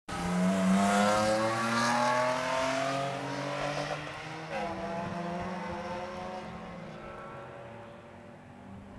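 Race car engine accelerating hard, its pitch rising steadily for the first few seconds. The pitch drops about four and a half seconds in, then the sound fades as the car pulls away.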